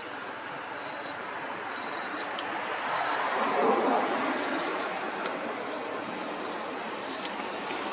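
Outdoor ambience: a short, high chirping call repeated about once a second over a steady rushing background that swells about three to four seconds in.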